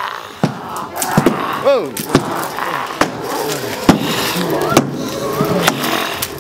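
Haunted-house scare noise: sharp bangs at uneven intervals, the loudest about four seconds in, with high wailing and moaning voices between them.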